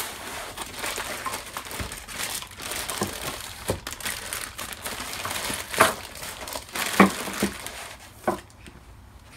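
Polythene bags rustling and crinkling as bagged parts are handled and lifted out of packing, with a few sharp knocks about six, seven and eight seconds in. The rustling dies down near the end.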